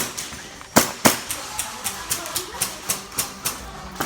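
Airsoft guns firing: three loud, sharp cracks in the first second, then a steady run of quieter snaps, about four a second.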